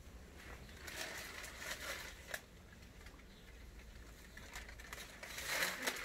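Newspaper pages rustling and crinkling as they are handled, in two spells: about a second in, and again near the end as the paper is lowered and folded.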